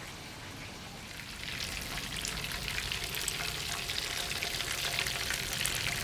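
Battered chicken deep-frying in hot oil in a cast-iron skillet: a dense, steady crackle and sizzle that sets in about a second and a half in.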